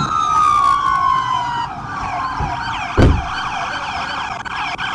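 Police patrol car sirens: one wail falls steadily in pitch over the first second and a half, then several faster yelping sweeps overlap. A single loud thump about three seconds in.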